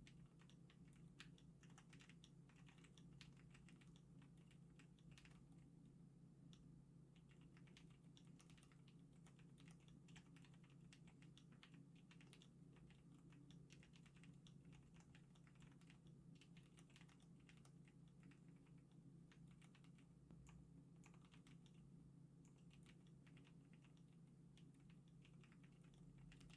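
Typing on a Zuoer acrylic stacked custom keyboard with Cherry MX RGB Black linear switches: a faint, continuous run of irregular keystrokes. A steady low hum sits underneath.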